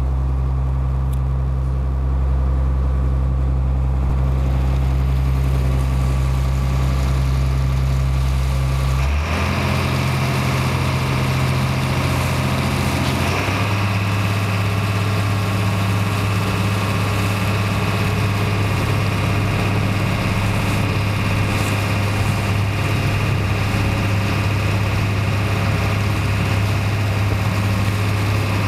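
Small harbour ferry's diesel engine running steadily. About nine seconds in, its note shifts and a rush of water and wind joins, and the note shifts again a few seconds later as the boat gets under way.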